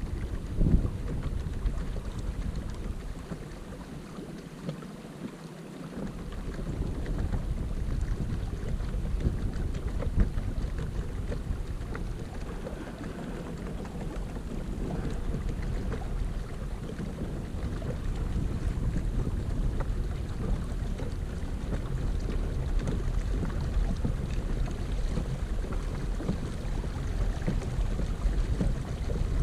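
Wind buffeting the microphone: a steady low rumble that eases off for a few seconds near the start, then returns.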